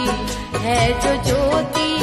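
Hindi devotional bhajan: an ornamented, wavering melody over steady held accompaniment tones and light percussion.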